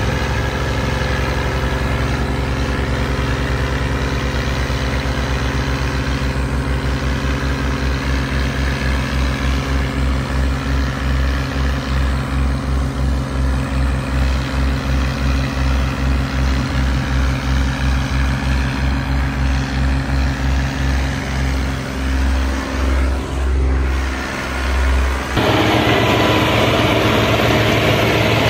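Farm tractor's diesel engine running under the load of a trolley piled high with sugarcane. Its steady drone takes on a regular throb, about two pulses a second, that slows as the tractor draws away. Near the end the sound switches abruptly to a louder, steadier engine.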